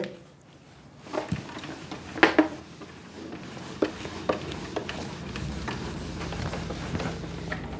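A cloth rubbing across a whiteboard, wiping it clean, with a few short knocks and clicks.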